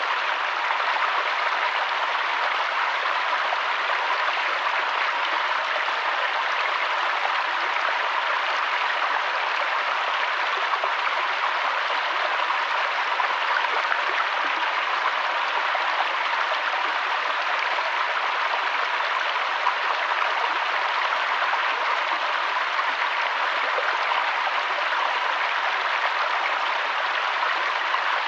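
Steady, even rush of water from a mountain waterfall, with no changes or separate calls.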